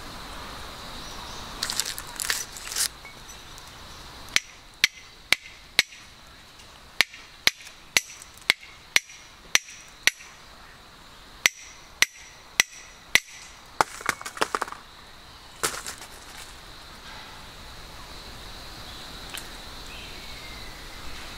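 Fire steel struck over and over with a scraper, about fifteen sharp metallic scrapes in two runs at roughly two a second, throwing sparks onto wood shavings that have not yet caught.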